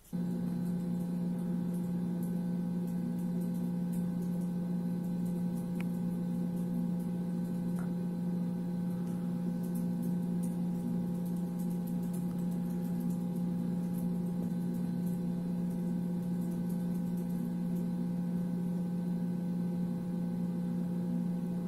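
Motor-hum sound effect for the virtual ABB IRB 6620 industrial robot, playing while the robot arm moves. It is a steady, even drone with a few fainter higher tones above it, and it starts and cuts off abruptly.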